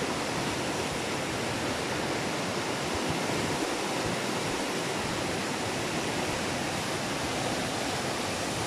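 A river in flood, its turbulent muddy water rushing steadily past in a continuous, even wash of noise.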